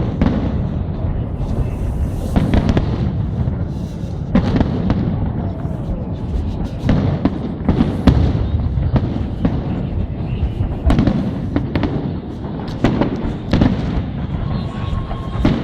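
Fireworks salute: a continuous low rumble of launches and bursts, punctuated by many sharp, irregular bangs.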